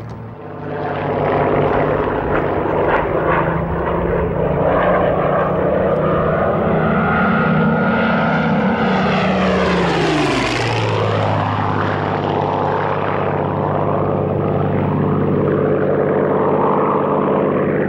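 Hawker Hurricane's Rolls-Royce Merlin V12 engine and propeller on a low flypast: a steady, loud engine note whose pitch falls sharply about ten seconds in as the fighter passes, then holds at a lower pitch as it goes away.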